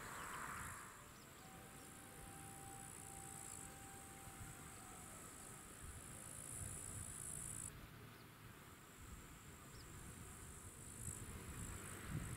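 Meadow insects chirring in long high-pitched trills that stop and start every few seconds, over a faint low wind rumble. A hiss dies away in the first second.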